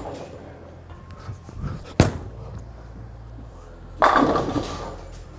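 Bowling alley sounds: one sharp bang about two seconds in, then about four seconds in a clattering burst lasting about a second, like pins being struck. A low steady machinery hum runs beneath.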